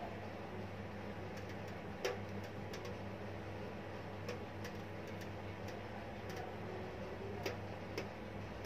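Steady low hum of room tone with faint clicks at irregular intervals.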